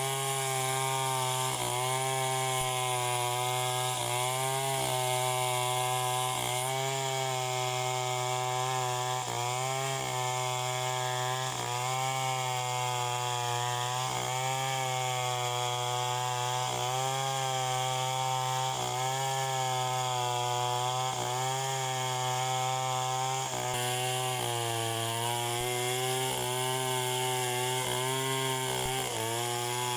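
Chainsaw running at high revs while cutting wood, its engine note sagging briefly about once every second or so as the chain bites.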